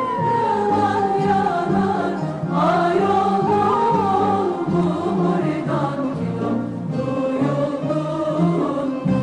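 Background music with singing: a gliding sung melody over sustained low accompaniment notes.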